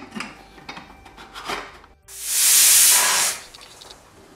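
Pressure cooker lid clicking and scraping as it is closed and locked. About two seconds in, a loud hiss of steam bursts from the cooker's whistle weight for just over a second, then fades to a soft hiss: the cooker's whistle, the sign that it has come up to pressure.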